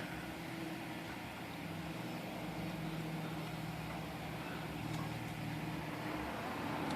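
Steady low mechanical hum, with a faint light tick about five seconds in.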